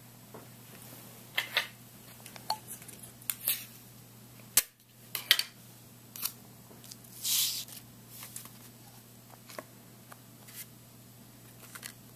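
Paper and aluminium foil being handled on a wooden tabletop: scattered light clicks, taps and rustles, with a short louder rustle about seven seconds in.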